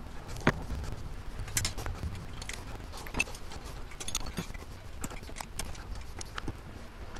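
Small metal parts and a screwdriver clicking and clinking against the gears and shift linkage of an opened manual transaxle, a dozen or so short taps at irregular intervals.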